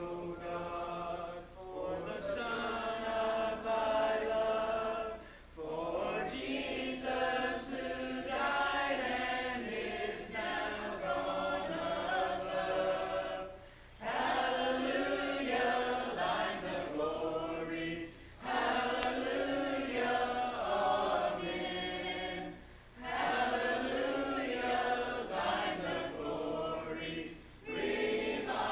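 Congregation singing a hymn a cappella, many voices together without instruments, pausing briefly between lines every few seconds.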